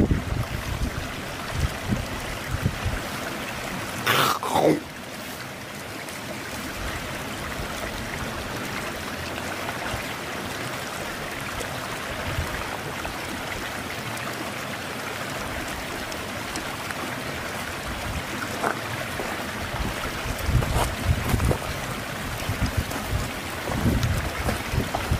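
Steady rushing hiss of a river stream. About four seconds in, a single whistle falls in pitch over under a second. Low rumbles come near the start and again in the last few seconds.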